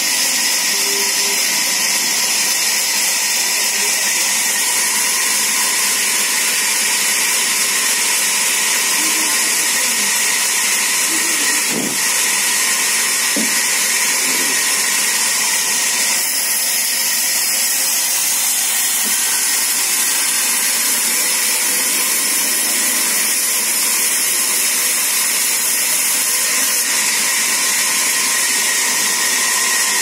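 Sawmill band saw running, a steady, loud hiss that does not change.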